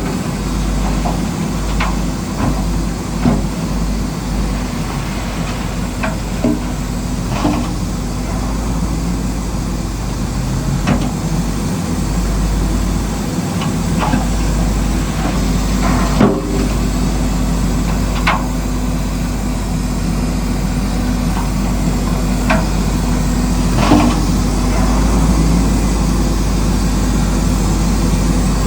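Radio-controlled model construction machinery running steadily, with a dozen or so short knocks and clacks scattered through it as rock is moved.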